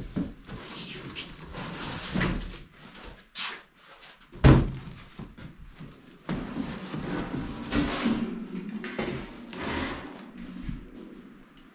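Rustling, scraping and knocking as a large cardboard shipping box is opened and a sheet-steel car roof skin is handled out of it, with one heavy thump about four and a half seconds in.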